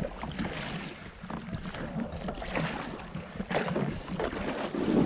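Kayak paddle strokes splashing and dripping in shallow water as a sea kayak glides in toward a stony shore, with a louder low bump near the end.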